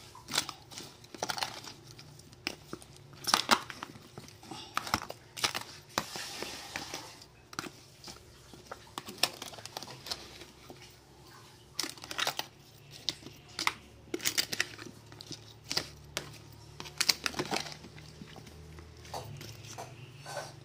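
A spoon tossing sliced green mango in a thin plastic food container, with the plastic handled: irregular clicks, taps and crinkles, some in quick clusters.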